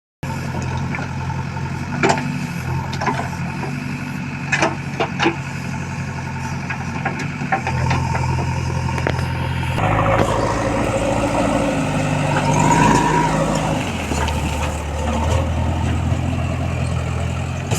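JCB backhoe loader's diesel engine running steadily, with a few sharp knocks in the first few seconds. From about ten seconds in it revs up under load, then settles back.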